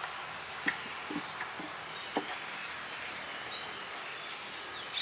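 Outdoor background of insects and short, scattered bird chirps, with a few faint knocks on wood.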